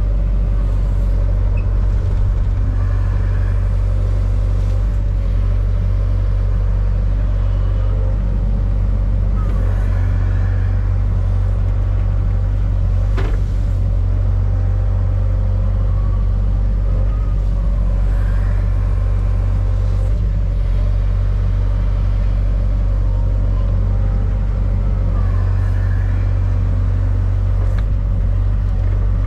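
John Deere 60G mini excavator's diesel engine running steadily, heard from the operator's seat, with a faint whine that rises and falls several times as it works. A single sharp click sounds about 13 seconds in.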